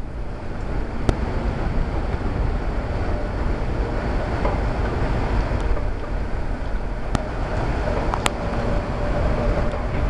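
Gusty hurricane wind buffeting the microphone: a steady rushing noise with a deep rumble, broken by a few sharp clicks.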